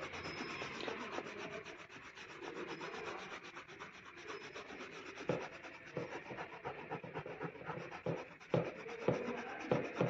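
Sandpaper rubbed by hand over a plastic car bumper, sanding away excess body filler from a filled dent: a steady scratchy rasp of back-and-forth strokes, with a few sharper, louder strokes in the second half.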